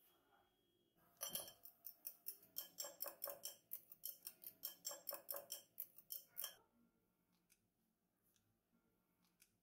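Metal fork beating egg yolk in a small ceramic bowl: a fast run of clinks against the bowl, about four a second, starting about a second in and lasting about five seconds.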